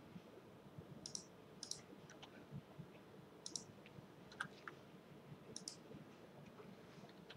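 Faint computer mouse clicks and key presses: short, sharp clicks about a second apart, several in quick pairs, over a low room hum.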